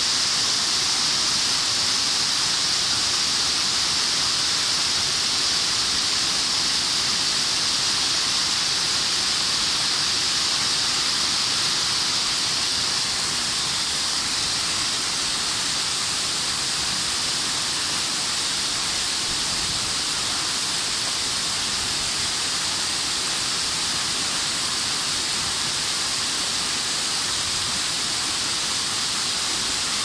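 A waterfall's water falling onto boulders, a steady hissy rush that does not let up.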